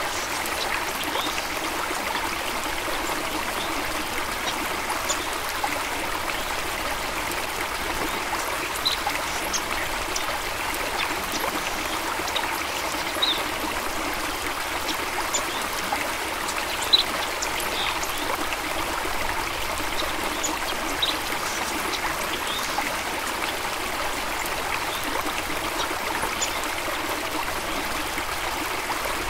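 A small stream running steadily over stones, a continuous rushing trickle with scattered brief splashes and plinks of water.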